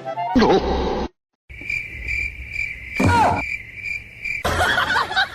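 A steady high-pitched trill, like a chirping cricket, runs for about three seconds. A short, loud, downward-sliding cry from an animal cuts across it about halfway through.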